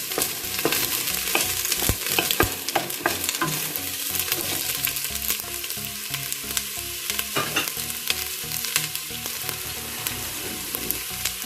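Garlic and onion sizzling in hot oil in a pan over medium heat, with a utensil stirring and clicking against the pan now and then.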